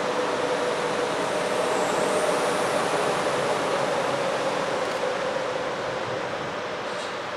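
Freight train led by two GE diesel-electric locomotives, an ES44AH and an AC44CW, approaching slowly; the engines run with a steady drone over rail noise.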